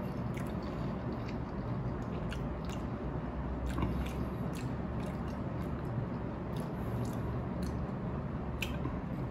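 A person chewing a mouthful of cheese ramen noodles with the mouth closed: soft, wet chewing with many small scattered clicks.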